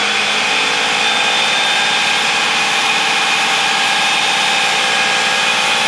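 Countertop blender running steadily on its blend setting, puréeing steamed cauliflower with butter and cream cheese into a thick mash. A loud, even motor whir with a constant whine.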